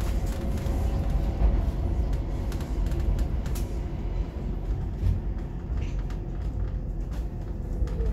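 Stockholm metro train running at speed, heard from inside the carriage: a steady low rumble of the wheels on the track with a faint steady whine above it.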